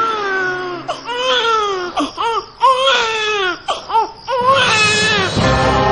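Newborn baby crying in a run of about six short wails, each rising then falling in pitch, with brief catches for breath between them.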